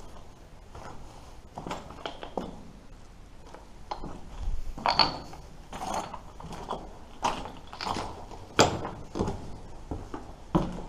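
Footsteps walking at an uneven pace, about one or two steps a second, with one heavier step about eight and a half seconds in.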